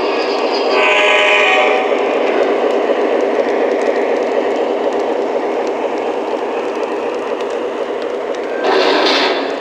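Model train on the rails: a short multi-tone signal blast that ends about two seconds in, then a steady running sound on the track, with a short burst of hiss near the end.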